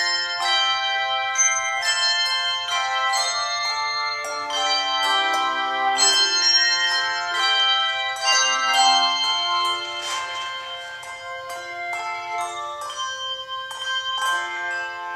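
Tuned bells playing a melody: many struck notes that ring on and overlap one another.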